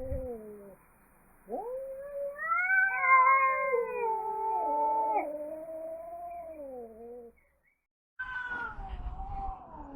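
Angry cat yowling: long, drawn-out wavering yowls that rise and fall in pitch. One runs for about six seconds, then after a short break another begins near the end.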